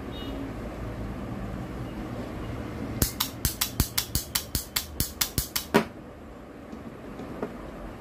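Freshly repaired push switch of an 11E demolition hammer clicked on and off by hand: a quick run of about fifteen sharp clicks, about six a second, starting about three seconds in and stopping shortly before six seconds, the last click the loudest.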